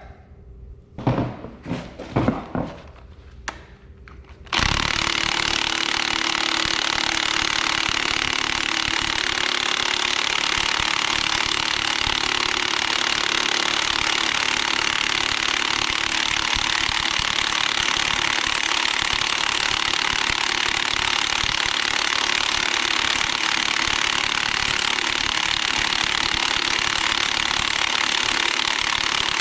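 A few knocks and clunks, then about four and a half seconds in an impact wrench starts up and hammers without a break, running a bolt in to draw the front pulley onto the crankshaft of an Oliver 1855 engine.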